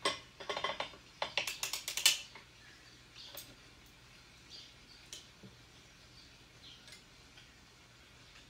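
Metal needles and parts of a circular sock knitting machine clicking and rattling as they are handled: a quick, irregular run of clicks for about two seconds, then only a few faint ticks.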